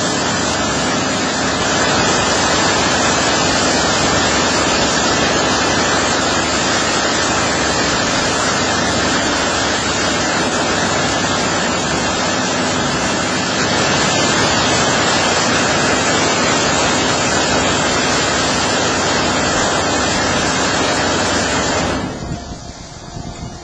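High-pressure water jets of a one-arm touchless automatic car wash spraying a minivan, a loud, steady hiss of water. The spray cuts off near the end, leaving a quieter steady machine hum.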